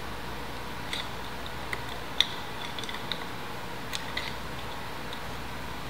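A handful of light metallic clicks and taps, spread unevenly over a few seconds with the sharpest about two seconds in. They come from handling a Yamaha YZ125 two-stroke piston and its wrist pin while the pin is pushed out by finger. A faint steady room hum lies underneath.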